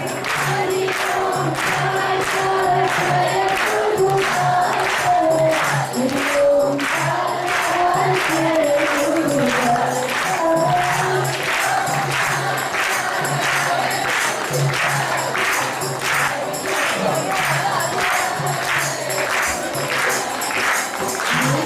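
Devotional singing, a melody moving step by step over a low steady drone, with jingling hand percussion keeping a steady beat.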